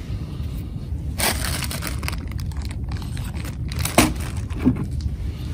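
Low, gusty rumble of wind buffeting the microphone, with a few light clicks about a second in and again around four seconds in.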